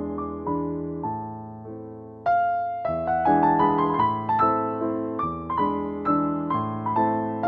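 Gentle piano melody: single notes struck over held bass notes, each fading after it is played. A little over two seconds in, the playing turns louder and fuller, with notes coming faster.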